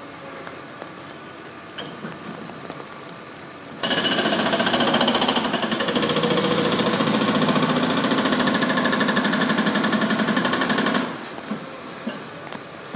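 A powered demolition breaker hammering rapidly and steadily, starting abruptly about four seconds in and cutting off about seven seconds later. Faint knocks of demolition debris before and after.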